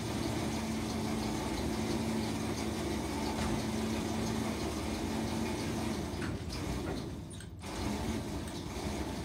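Electric hose reel on an aviation fuel pump running, winding the fuel hose back in with a steady motor hum and the hose sliding in. The hum fades a little over halfway through.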